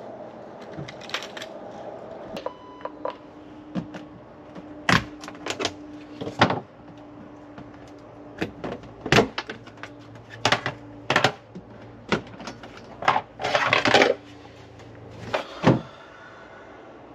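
Scattered clicks, knocks and clatter of things being handled aboard a boat, denser about three-quarters of the way in. A short electronic beep comes about two and a half seconds in, and a faint steady hum runs through the middle.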